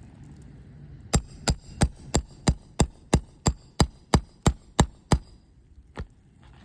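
A roofing hammer striking a steel nail puller in a quick steady run of about a dozen sharp, ringing metal taps, about three a second, driving the puller under a roofing nail on a shingle to pull it. A single softer knock follows near the end.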